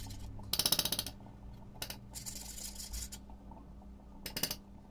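A metal spoon stirring and scraping around a stainless steel pot of oatmeal mix, in short rapid rattling strokes: one about half a second in, softer scraping in the middle, and another near the end.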